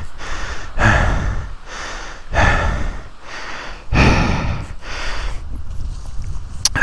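A man breathing heavily close to a mic inside a motorcycle helmet, about four loud breaths a second and a half apart, with a sharp click near the end.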